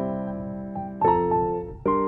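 Background piano music: gentle, sustained chords, with new ones struck about a second in and again near the end.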